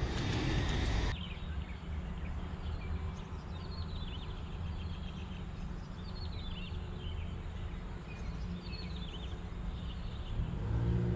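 Steady low rumble of traffic on the elevated roadway overhead, with a bird calling short falling chirp series every couple of seconds. A noisy rush in the first second cuts off suddenly, and a vehicle's engine hum swells near the end.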